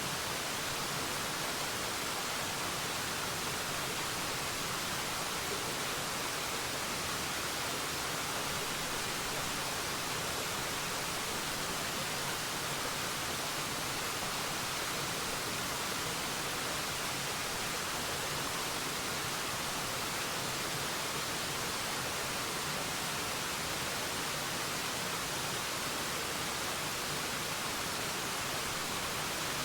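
Waterfall: a steady, even rush of falling water, mostly hiss, holding one level throughout with no distinct splashes or other events.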